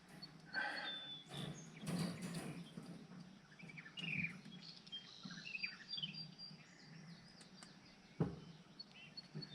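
Small birds chirping with short, quick sliding notes, over intermittent clinks and rattles of wire-mesh cage panels being handled, with a sharper knock about eight seconds in.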